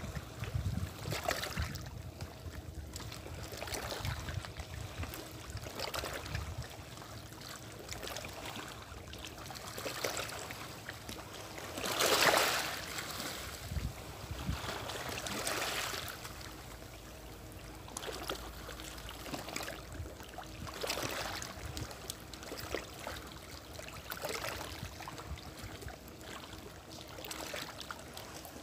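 Small waves lapping and washing against shoreline rocks: a soft wash of water every second or two, with one louder splash about twelve seconds in.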